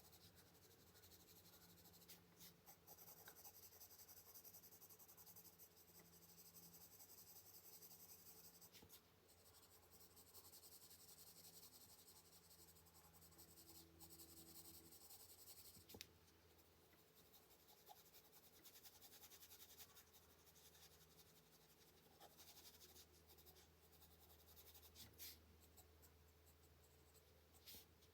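Faint scratching of a colored pencil shading lightly on paper, in long strokes with a few small taps.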